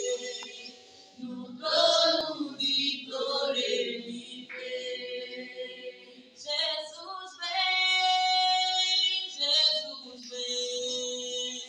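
Women's voices singing a worship song together, with one note held steady for about two seconds a little past the middle.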